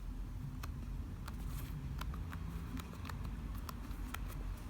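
Keystrokes on a MacBook Air's laptop keyboard, a string of irregular light clicks as a Wi-Fi password is typed, over a low steady hum.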